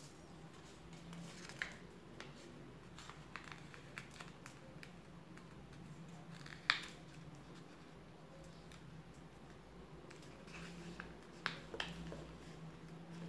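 A sheet of white paper being folded and creased by hand on a tabletop: soft rustles and scrapes as the fingers press the folds flat, with a few sharp crinkles, the loudest about seven seconds in and two more near the end.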